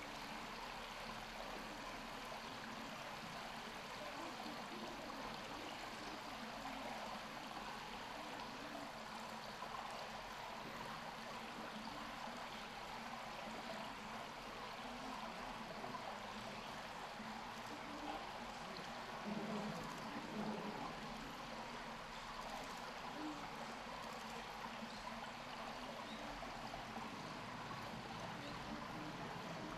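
Steady rushing, water-like background noise, with a few faint voices briefly about two-thirds of the way through.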